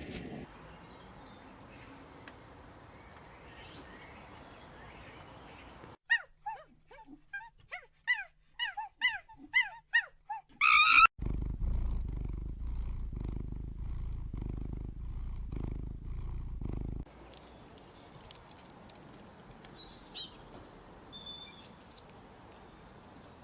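Animal sounds in several short takes: a run of short, high calls repeated about twice a second, then a loud low pulsing rumble for about six seconds that cuts off suddenly, then a few faint high chirps.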